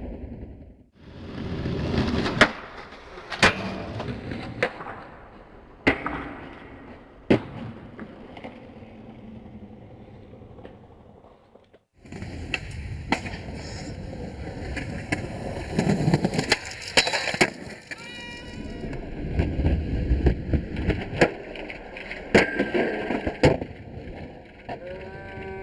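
Skateboard wheels rolling on concrete, broken by sharp clacks of the board popping and landing, over two shots, with the sound dropping out briefly about a second in and again about halfway through.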